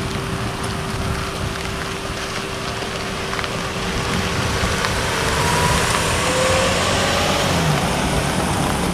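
Diesel locomotive (CP GP20C-ECO 2246) running as it approaches: a steady rumble under a broad hiss, growing somewhat louder about halfway through.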